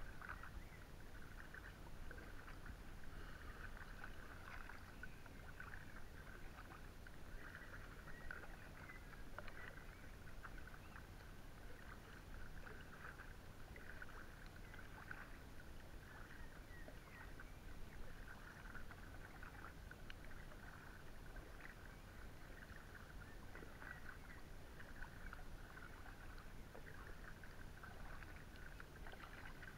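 Kayak paddle strokes on calm water: soft, irregular dips, drips and splashes from a double-bladed paddle, heard faint and muffled over a low rumble.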